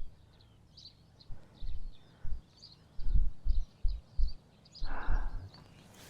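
Small birds chirping throughout, with irregular low thumps and rumbles on the microphone that are loudest in the second half.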